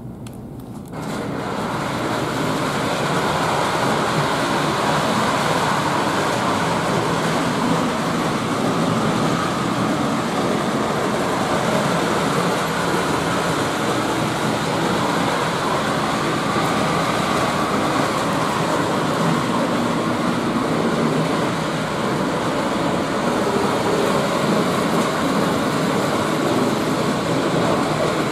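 The motor mechanism of an MTH operating transfer station accessory runs with a loud, steady mechanical noise, starting suddenly about a second in and stopping near the end. It is noisy, as owners of this accessory say it is.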